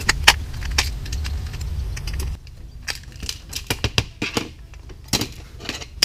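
Small screws being turned out of an old Toshiba air-conditioner remote with a precision screwdriver, with a low handling rumble and a few sharp clicks. After about two and a half seconds come many short plastic clicks and ticks as the remote's case and circuit board are pulled apart and loose screws drop.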